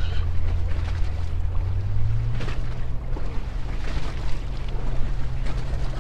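Low, steady engine drone whose pitch steps up slightly about two seconds in, with wind on the microphone over it.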